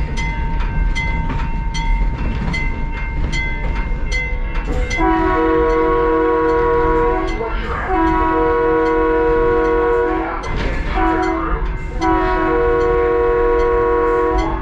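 Chime air horn of a Skunk Train locomotive sounding the grade-crossing signal, two long blasts, a short one and a long one, each holding several notes at once. Before the horn, a railroad crossing bell dings steadily about one and a half times a second.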